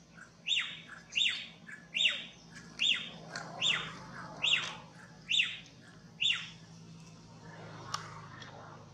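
A run of eight high, squawking animal calls, each sliding quickly down in pitch, evenly spaced a little under a second apart. They stop about two-thirds of the way through, and a single faint click follows near the end.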